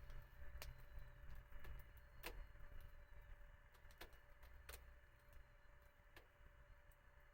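Wood fire crackling quietly: scattered sharp pops and snaps about once a second over a low steady rumble.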